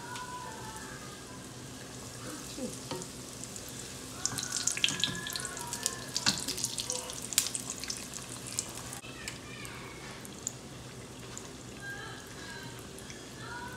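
Breadcrumb-coated corn dogs deep-frying in hot oil: a steady sizzle, with a livelier stretch of crackling and popping from about four to eight seconds in.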